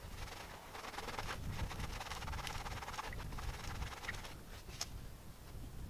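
Stones being handled among the rocks of a pond edge: faint scraping and scattered small clicks of rock on rock, over a low rumble.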